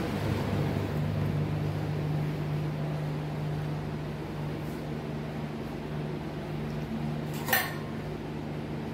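A steady low hum over a background hiss, with one short clink about seven and a half seconds in.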